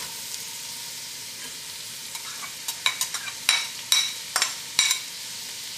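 Diced carrots and celery sizzling in melted butter in a stainless steel pot, a steady hiss. From about three seconds in, a run of seven or eight sharp knocks as the bowl of celery is tapped against the pot.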